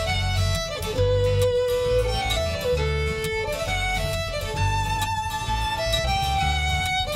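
Title theme music: a fiddle plays a lively melody of held notes over a strummed acoustic guitar.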